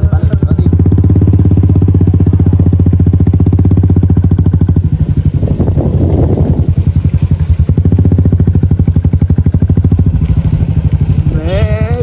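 Motorcycle engine running steadily under way, a fast even pulse of engine firing. Music comes in near the end.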